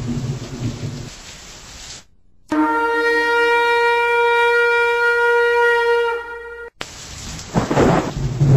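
Thunderstorm sound effect of rain and rumbling thunder that fades away about a second in. After a short silent gap, a single long horn blast is held steady for about four seconds. Then the rain and thunder come back, with a loud thunderclap near the end.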